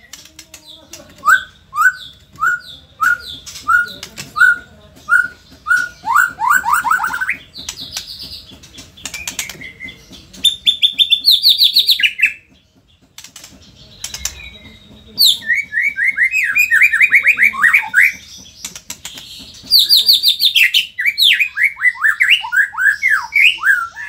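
White-rumped shama singing a varied song: a run of short, down-slurred whistles about two a second, then fast trills and sweeping phrases, with a brief pause near the middle.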